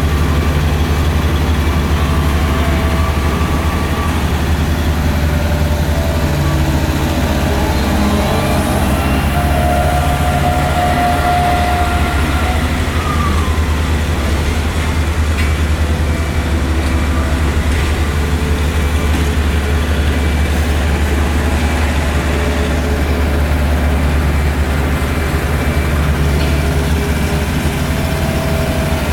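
Heavy roadworks machinery running steadily with a loud, constant low drone, and a faint whine that rises and falls about a third of the way through.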